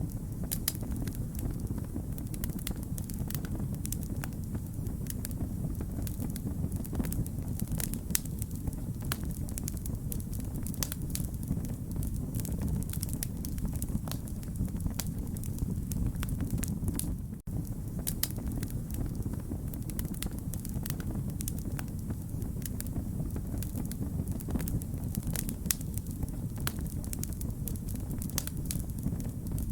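Wood fire crackling, with frequent sharp pops and snaps over a low, steady rumble. The sound drops out briefly once, a little past halfway.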